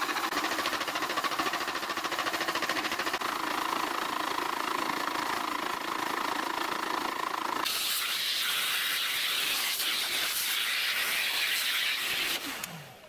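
Milling machine cutting a solid cast-iron block, a steady grinding run with a hum under it. About eight seconds in the sound switches abruptly to a brighter hiss, and near the end the spindle motor winds down with a falling tone.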